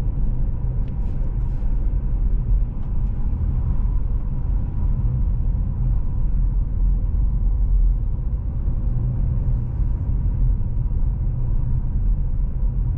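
Car driving on a paved road, heard from inside the cabin: a steady, low rumble of engine and tyre noise with no change in pace.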